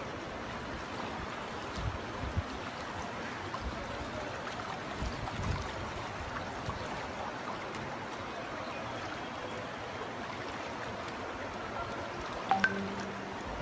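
Floodwater rushing along a street in a steady noisy rush, with a few low bumps on the microphone and a short sharp sound near the end.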